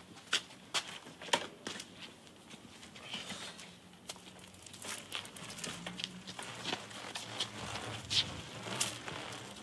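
Footsteps on hard pavement, sharp steps about two a second at first, then scattered irregular clicks and knocks.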